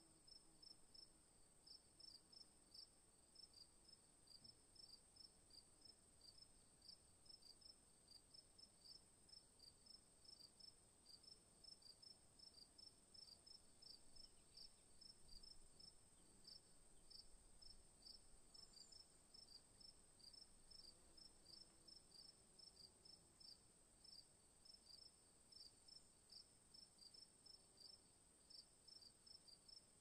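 Crickets chirping faintly in short, evenly repeated high-pitched chirps, about three a second, over a steady high tone.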